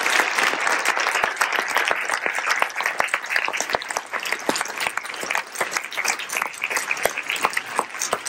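Audience applauding: a dense wash of clapping that thins out after a couple of seconds into scattered individual claps.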